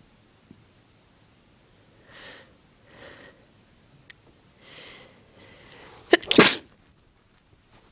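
A person sneezing: several gasping in-breaths build up over a few seconds, then one loud, sudden sneeze about six seconds in.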